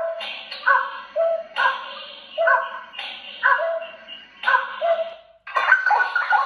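Recorded bird call played loud through horn loudspeakers driven by a 263B amplifier: a short call repeating about once a second, changing to denser, busier calling about five seconds in.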